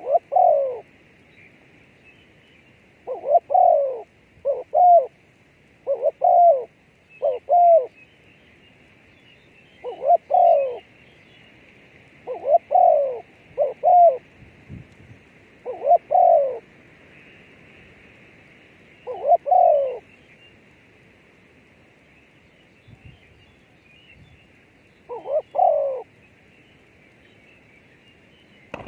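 A dove cooing: about a dozen short coos at uneven intervals, over a steady faint high hiss.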